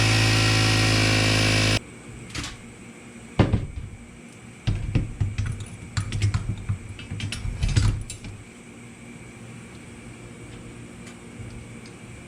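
A loud, steady motor whine that cuts off abruptly about two seconds in, followed by a few seconds of scattered clicks and knocks of small hard parts being handled.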